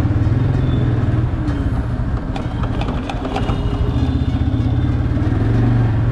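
TVS Apache motorcycle's single-cylinder engine running at low speed, its note rising and falling a little with the throttle, with a few light rattles about halfway through.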